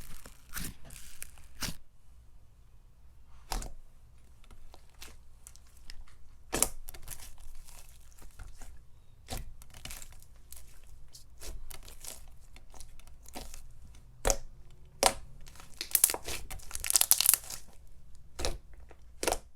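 Bubbly, glossy glue-based slime being squeezed and stretched by hand, giving off scattered sharp pops and clicks as its air bubbles burst, with a quicker run of crackling pops near the end.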